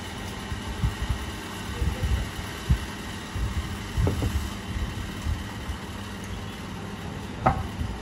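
Mealtime noises close to the microphone: irregular low bumps from eating and handling, and a couple of sharp clicks, over a steady background rumble.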